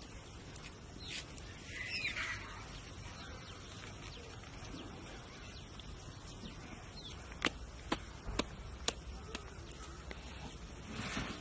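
Quiet outdoor background with birds calling, one short sweeping call about two seconds in. A few sharp clicks come between about seven and nine seconds in.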